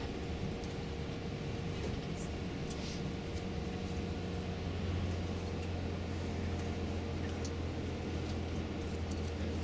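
Steady drone of a tour bus's engine and road noise heard inside the passenger cabin while driving, with a low hum that grows a little stronger about four seconds in.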